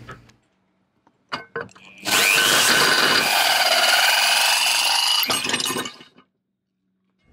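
Cordless drill with a 12 mm bit boring into a yacht's metal mast top cap. A few short clicks come first, then the motor spins up with a rising whine and runs under load for about four seconds before stopping.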